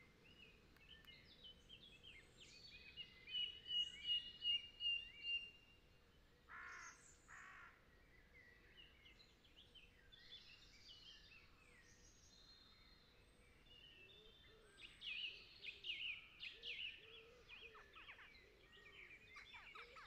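Faint woodland birdsong: several small birds chirping and trilling, busiest twice, with two harsh, hoarse calls about six and a half seconds in.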